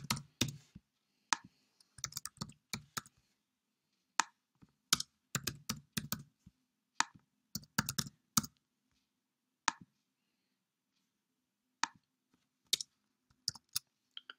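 Computer keyboard keys being typed in short irregular bursts of clicks with pauses between.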